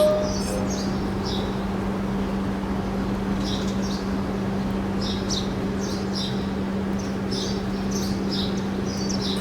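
Birds chirping, with short high calls coming irregularly every half second to second, over a steady low hum and a hiss of outdoor background noise.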